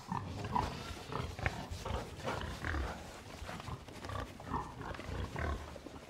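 Domestic pigs grunting, many short irregular calls one after another.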